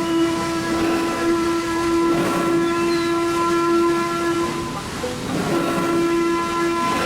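The riverboat sounding a steady pitched tone over a steam-like hiss. The tone drops out for about a second near the middle and then comes back.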